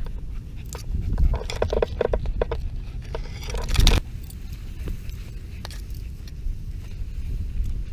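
Tall grass brushing and scraping against a low camera moving through a field, with wind rumbling on the microphone. Irregular rustles and knocks, with the loudest scrape just before four seconds in.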